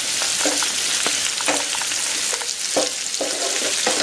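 Sliced capsicum, onion and garlic sizzling in hot sunflower oil in a nonstick frying pan, stirred with a wooden spatula that scrapes across the pan about once a second.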